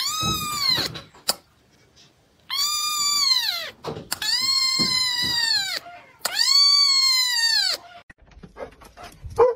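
Young kitten meowing four times: long, high-pitched cries, each rising and then falling in pitch, with short pauses between them.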